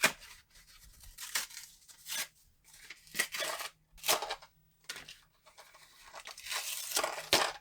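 Packaging crackling and tearing as a new receptacle cover plate and its screws are unpacked, in a string of sharp crackles with a longer patch of rustling near the end.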